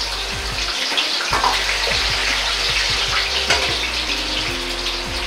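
Taro pieces deep-frying in medium-hot oil in a wok: a loud, steady bubbling hiss full of fine crackles.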